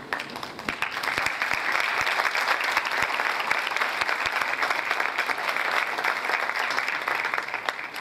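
Theatre audience applauding. The clapping builds up about a second in and then holds steady.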